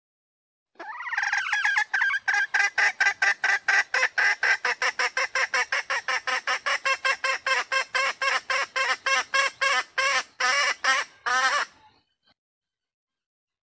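Female red junglefowl (Gallus gallus) calling: a long, fast run of short clucking notes, about five a second, that spaces out near the end. It is the hen's mating call, used as a lure to draw cock junglefowl close or set them crowing.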